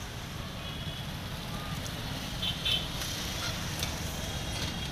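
Road traffic going by: a steady low rumble, with a few short high-pitched beeps about halfway through.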